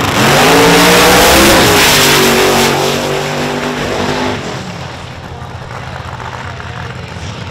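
Two drag racing cars, a supercharged Holden Torana and a twin-turbo Camaro, launching off the start line at full throttle. The engine pitch climbs, dips and climbs again about a second and a half in at a gear change, then the sound fades as the cars pull away down the strip around four and a half seconds in.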